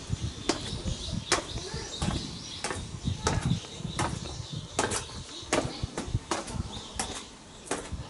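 Footsteps walking down paved steps: a sharp step about every three quarters of a second, over a low rumbling noise.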